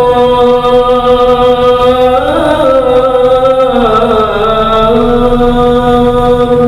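A man chanting Arabic devotional chant (salawat) in one long unbroken melismatic note. His pitch rises briefly about two seconds in, dips near the middle, then holds steady.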